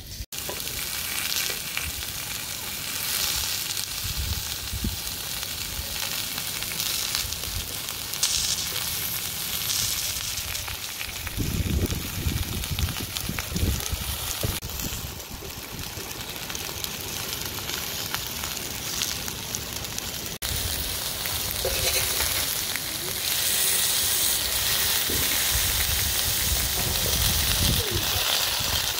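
Beef steak frying, a steady crackling sizzle, with low bumps now and then as the meat or pan is handled.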